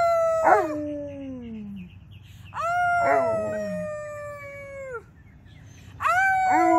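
Alaskan malamute and a person howling together: three long howls, each held about two seconds and sliding down in pitch at its end, with a second, lower howl falling away beneath the first two.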